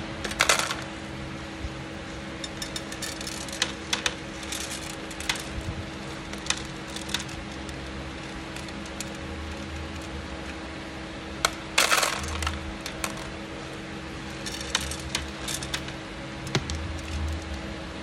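Small stone beads clicking and rattling against each other and a perforated metal scoop as they are shaken and sorted by hand, with scattered single clicks and a few louder rattling bursts, the loudest at about twelve seconds. A faint steady hum runs underneath.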